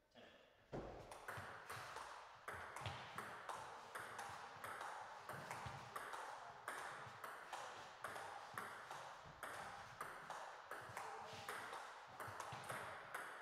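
Table tennis rally: the celluloid ball clicks off the bats and the table in a steady back-and-forth, about two hits a second, each click ringing briefly.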